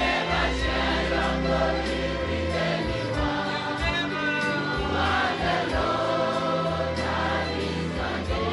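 A group of voices singing a gospel worship song together, over instrumental backing with a bass line and a steady beat.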